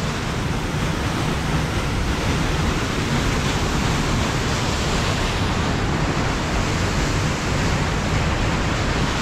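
Waterfall rushing, a loud, steady, even noise of falling water with no breaks.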